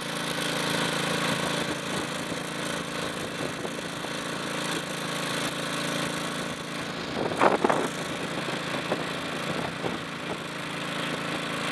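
Small engine of a portable fire pump running steadily at working speed as it drives a hose. A brief louder sound comes a little past the middle.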